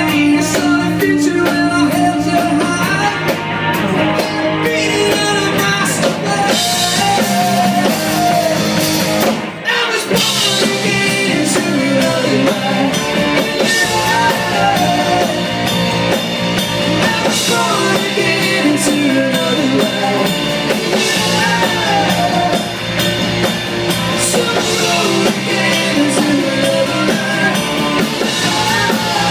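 Live rock band playing: electric guitar and drum kit, with a singer's voice over them.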